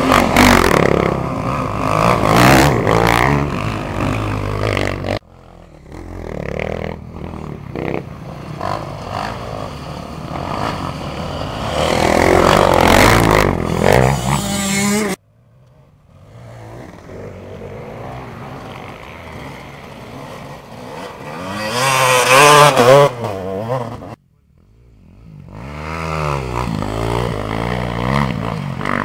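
Off-road racing motorcycles (dirt bikes) riding a sandy track, several engines revving up and down as they accelerate through ruts and pass close by, with the loudest passes about halfway through and again near the end. The sound cuts off abruptly three times.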